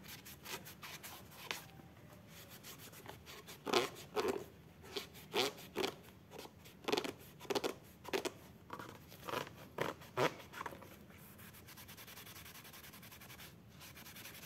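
Cloth rubbing hard over a bicycle saddle in a run of irregular strokes, about one or two a second, working cajeput oil into the screen-printed logo to strip it off. The strokes stop about ten seconds in and give way to softer rubbing.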